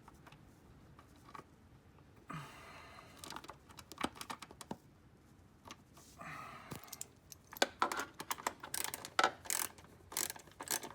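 Ratchet with an 8mm socket clicking and metal tool clinks while the door switch's mounting bolt is worked loose, with some handling rustle; the clicks come thick and fast over the last few seconds.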